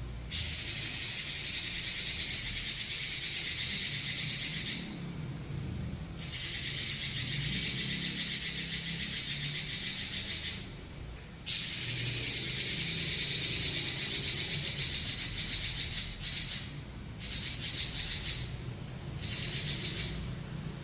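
Red-billed leiothrix (Pekin robin) singing long, rapid rolling trills, each several seconds long with short pauses between, breaking into shorter bursts near the end.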